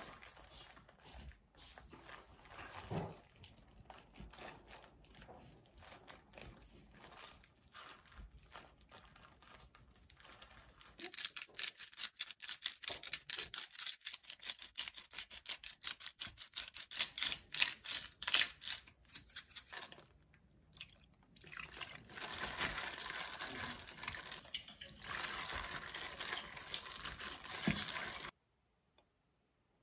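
Kitchen knife scoring raw chicken on a cutting board with soft, irregular knocks. Then a salt grinder gives a long run of quick clicking over a stainless steel bowl. A steady liquid wash follows, a milky liquid in the bowl being stirred by hand through the chicken, and the sound cuts off just before the end.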